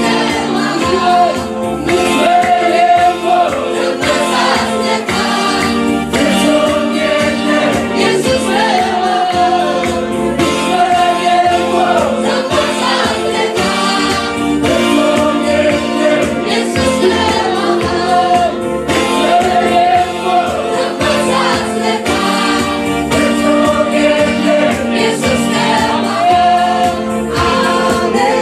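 Church choir of men and women singing a gospel worship song through microphones, with keyboard accompaniment and a steady beat.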